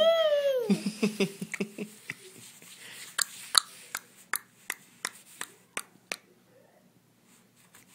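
A toddler imitating a horse's neigh: a high cry that slides down in pitch and breaks into a short shaky warble. A run of sharp single clicks follows, about two a second, stopping about six seconds in.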